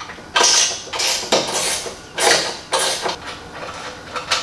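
Hand tool undoing the screw under the removable end piece of a modular aluminium side step, in five short scraping, rattling strokes, then a single sharp click near the end.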